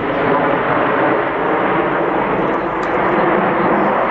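Jet engines of a nine-ship formation of Canadair NF-5 fighters flying past, a loud steady rush of jet noise.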